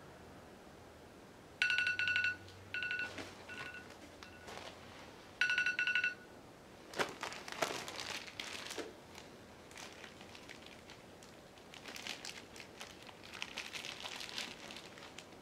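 A smartphone countdown timer alarm goes off as the countdown reaches zero, playing a ringtone of repeating bright tones in three bursts. From about seven seconds in, plastic bags crinkle and rustle as a small bag of weight is dropped into the hanging load bag and handled.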